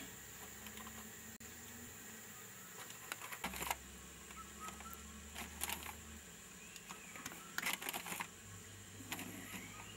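Foil milk-powder bag crinkling in a few short bursts as it is handled and powder is scooped out of it into a plastic bottle.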